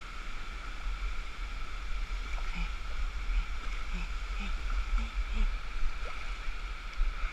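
Shallow stream water rushing over granite slabs, heard from a camera held at the water's surface: a steady rush over a low rumble, with faint gurgles.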